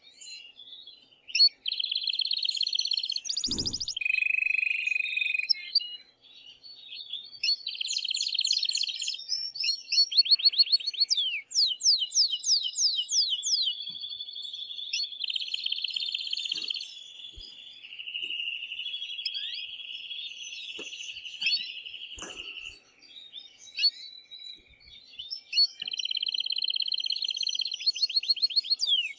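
Male domestic canary singing an excited song: phrases of rapid trills and rolling held tours, with runs of fast sweeping notes, broken by short pauses. A single low thump about three and a half seconds in.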